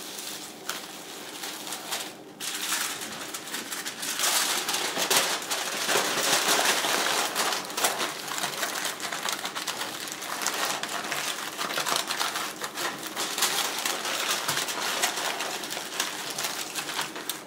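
Aluminium foil crinkling and crackling as hands fold and crimp it tightly around a plastic-bagged slab of ribs, louder from about four seconds in.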